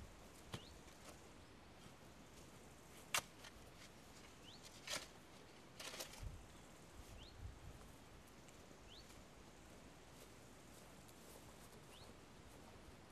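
Near-quiet outdoor background with a few scattered sharp clicks, the loudest about three seconds in, and faint short rising chirps repeating every two seconds or so.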